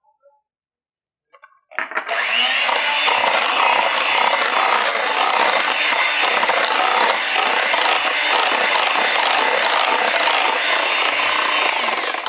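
Electric hand mixer beating an egg into creamed butter and sugar in a glass bowl. It starts about two seconds in, runs loud and steady, and cuts off just before the end.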